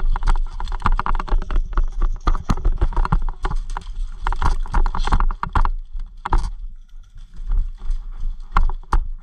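Airsoft electric rifle (Cybergun Colt M4 AEG) firing several bursts of rapid clicks, some over a second long and the last two short, with scattered knocks and footstep noise between them.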